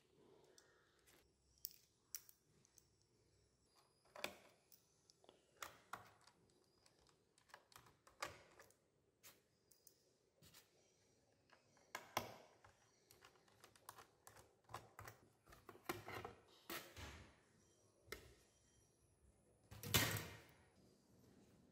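Small precision screwdriver working the screws of a laptop's plastic bottom access cover: scattered light clicks, ticks and short scrapes of metal on screws and plastic. The loudest clatter comes near the end, as the plastic cover comes off the laptop.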